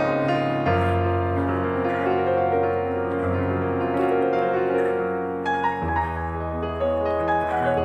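Background instrumental music: sustained chords over a low bass note that changes every few seconds.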